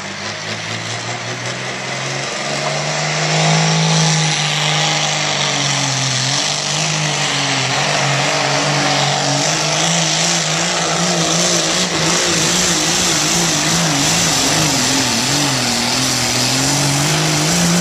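Pulling tractor's diesel engine running flat out under full load as it drags the sled. Its pitch wavers up and down continuously, and it grows louder about three to four seconds in.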